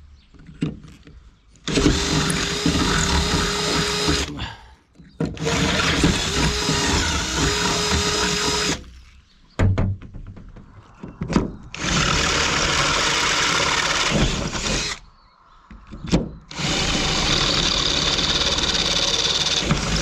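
Cordless drill boring holes through a metal roof rack bar, in four runs of a few seconds each with short pauses and a few clicks between them.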